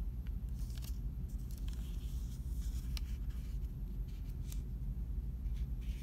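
Sheet of origami paper being handled and tucked into a folded pocket: soft rustles and small sharp crinkles, scattered through, over a steady low hum.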